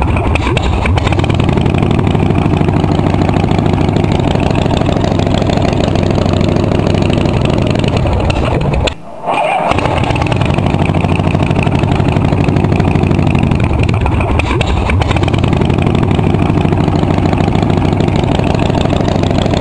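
Harley-Davidson Shovelhead V-twin motorcycle engine running, its revs dropping and climbing again near the start and about three-quarters of the way through. The sound breaks off for about half a second near the middle, then the engine runs on.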